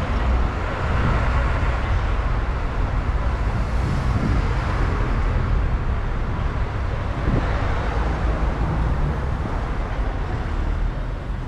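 Road traffic passing on a city street, with cars and a double-decker bus: a steady rumble of engines and tyres.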